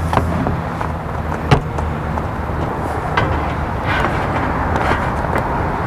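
Cordless drill with a half-inch twist bit boring a hole through a hard plastic tailgate trim panel: a steady grinding noise with scattered clicks as the bit cuts the plastic.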